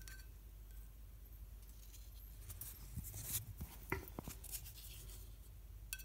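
Nail file tapping and scraping against the glass tube of a plasma lamp: a cluster of light clicks and scrapes around the middle, over a faint steady low hum.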